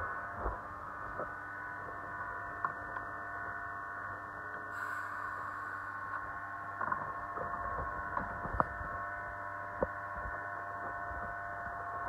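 Steady hum of several held tones, with a few sharp metallic clicks and knocks as a cam-lock hose coupling is handled and fitted onto a riser's load line.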